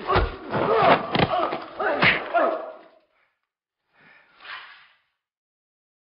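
Hand-to-hand struggle over a pistol: three hard thuds with swishing blows among men's strained grunts and cries for about three seconds, then one short, fainter sound about four seconds in.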